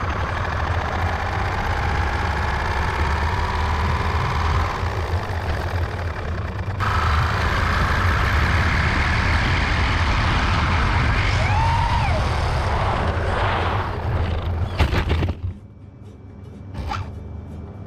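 3D-printed RC car driving on asphalt, heard from a GoPro mounted on it: a loud rumble of tyres and wind, with the electric motor and gearbox whining and rising in pitch as it speeds up. About fifteen seconds in comes a sharp knock as it runs off the road, and then it goes much quieter; its driving gear has melted on the motor shaft and slips.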